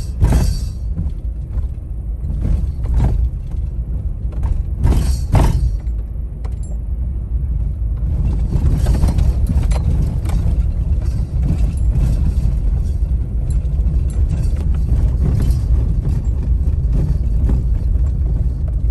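Car driving on a gravel road, heard from inside the cabin: a steady low rumble with the crackle of tyres on gravel, which grows denser from about eight seconds in, and a few short sharp rattles in the first six seconds.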